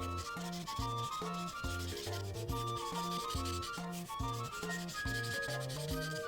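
Prismacolor paint marker rubbing and scratching across paper, over background music with a steady beat, bass line and melody.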